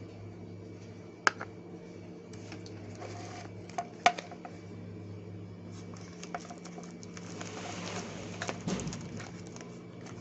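Scattered light clicks and taps as a watch case-back opener tool and its parts are handled. There are two sharper clicks, one about a second in and one about four seconds in, and a brief rustle near the end, over a steady low hum.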